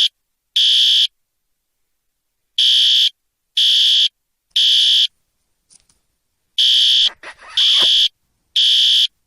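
Fire alarm sounding: loud, high-pitched electronic beeps in groups of three, about one a second, with a pause between groups. A brief falling sound cuts in between the beeps about seven seconds in.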